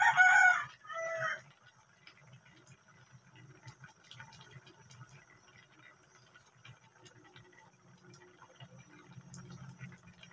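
A cat meows twice near the start, one longer call then a shorter falling one. After that there are only faint scattered ticks and a low hum while the coconut-milk stew simmers in the wok.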